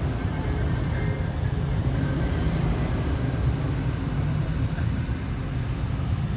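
Engines and exhausts of lowered pickups and cars rolling past at low speed, a steady low rumble.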